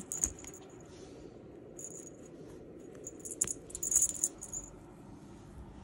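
A cat wand toy rattling in short, high-pitched jingly bursts as a cat bats at it: three bouts, the loudest and longest between about three and four and a half seconds in, with a few light taps.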